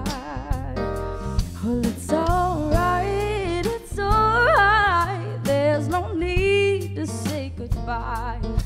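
A woman singing a lead vocal over a live band of acoustic guitar, bass and drums.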